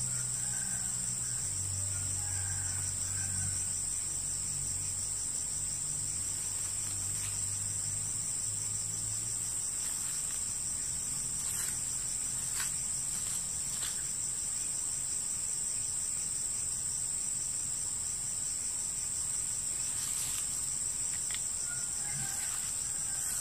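Insects calling in a steady, high-pitched chorus, a continuous shrill drone with a fast pulsing edge. A few faint soft knocks and rustles come through it in the second half.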